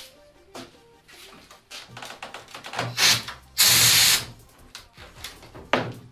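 Compressed air blasting from an air release wedge pushed under a carbon fibre part to pop it out of its mold: a short hiss about three seconds in, then a louder half-second blast, and another short hiss near the end. Scattered clicks and knocks come between the blasts.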